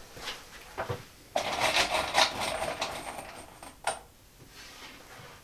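Small metal parts being rummaged and rattled by hand at a workbench: light clicks, then about two seconds of dense clinking, and a single sharp knock near the end.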